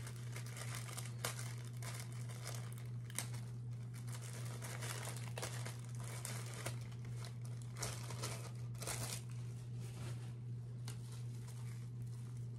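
Packaging crinkling and rustling in irregular bursts as it is handled, over a steady low hum.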